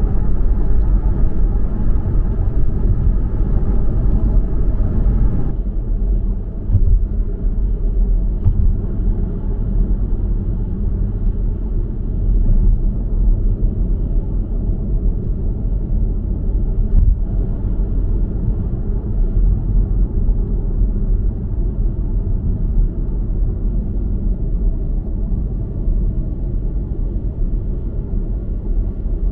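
Steady low rumble of road and tyre noise heard inside a moving car's cabin.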